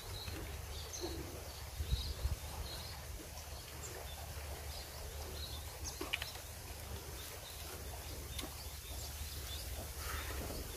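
Quiet outdoor ambience: a low steady rumble with faint scattered bird chirps and a few small clicks, near 2 and 6 seconds in.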